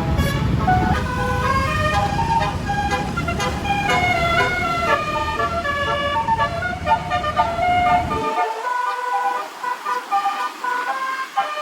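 Telolet basuri multi-tone bus horn playing a tune of quick, stepped notes over a low rumble. About eight seconds in the rumble cuts off suddenly while the horn tune carries on.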